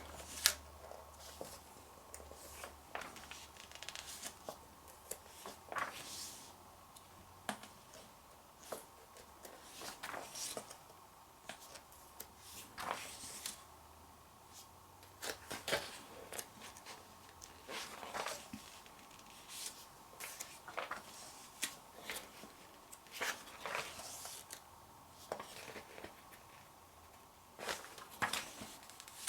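Magazine pages being turned by hand, a soft paper swish every couple of seconds.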